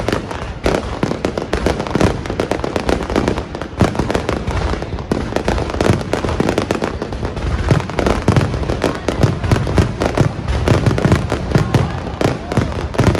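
Aerial fireworks going off in a dense, continuous barrage: rapid bangs and crackles, one on top of another, with no pause.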